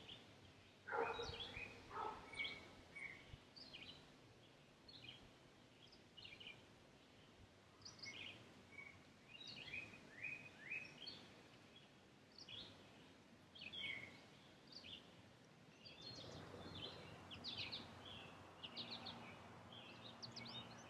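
Faint woodland birdsong: scattered short chirps and whistled notes from several small birds, with a brief louder, lower call about a second in.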